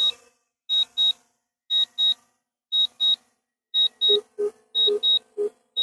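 Drone remote controller beeping during the drone's automatic return to home: short high beeps in pairs, about one pair a second. From about four seconds in, lower-pitched paired beeps join in between them.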